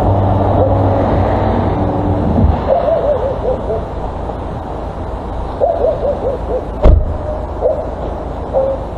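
Short, wavering hoot-like animal calls in quick runs, each run falling in pitch, heard twice and then singly, over steady background noise. A low hum stops about two and a half seconds in, and a single sharp knock comes near the end.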